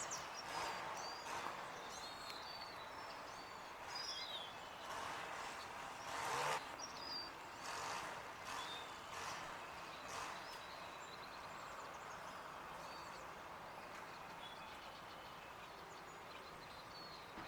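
Steady outdoor background noise with scattered short, high bird chirps and calls throughout.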